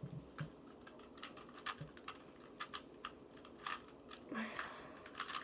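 A Rubik's Cube being twisted by hand: a string of faint, irregular plastic clicks as its layers turn.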